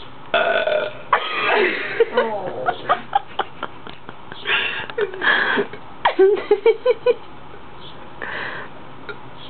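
A person burping loudly several times in a row, some belches long and drawn out, one run broken into quick short pulses.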